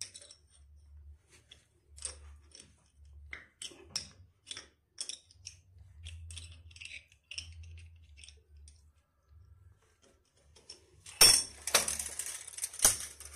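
Adjustable wrench turning a nut on a steel toilet floor bolt: scattered light metal clicks and scrapes as the nut is run down a turn or two to set the bolt height. A louder burst of metallic clatter comes near the end.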